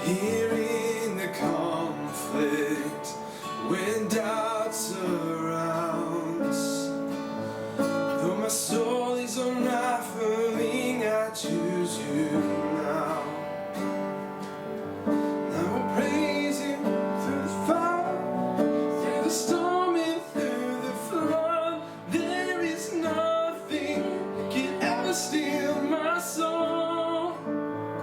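A worship song sung to acoustic guitar strumming.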